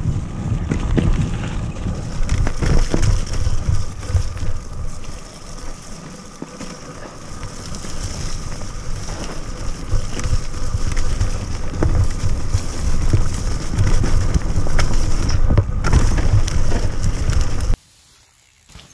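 Mountain bike ridden fast down a leaf-covered dirt trail, heard from a camera on the rider: wind buffeting the microphone over tyre noise and a steady clatter of knocks and rattles from the bike over bumps. Near the end it cuts off suddenly to a much fainter, quiet forest sound.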